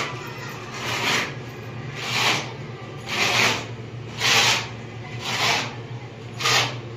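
Metal putty knife scraping wall putty across a rough cement wall, six rasping strokes about one a second, each about half a second long.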